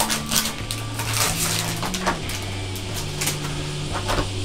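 Clear plastic shrink wrap crinkling and crackling as it is peeled off a small cardboard box, with irregular sharp crackles throughout.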